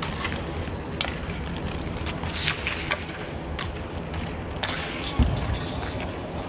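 Inline skate wheels rolling and scraping on an outdoor rink, with several sharp clacks of hockey sticks and puck, and a heavy low thud about five seconds in.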